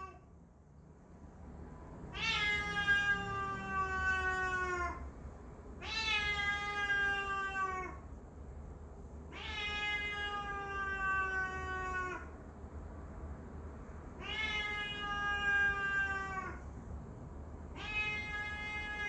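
Cat yowling in a territorial standoff with a stray: long drawn-out yowls of two to three seconds each, the pitch sagging slightly through each one. They come about every four seconds, four in full and a fifth starting near the end.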